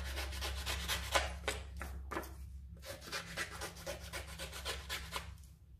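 Scissors cutting through a vinyl stencil sheet: a quick run of crisp snips and rasping rustles that thins out about halfway through.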